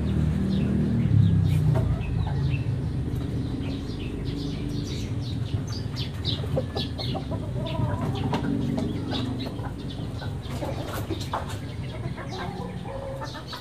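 Chickens clucking, with short calls scattered throughout, over a low rumble that is loudest in the first couple of seconds and then fades.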